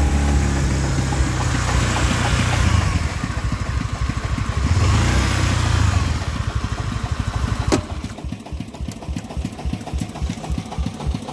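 Single-cylinder diesel engine of a công nông three-wheeled farm truck running loud, revving up twice in the first six seconds. A sharp knock comes just before eight seconds, and then the engine drops to an idle with an even, rapid putt-putt.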